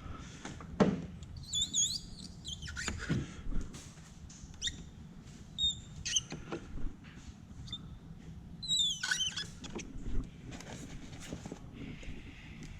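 Hand tool rubbing and squeaking on car window glass during tint prep, with scattered clicks and knocks and two spells of high, wavering squeaks, one about two seconds in and another near the nine-second mark.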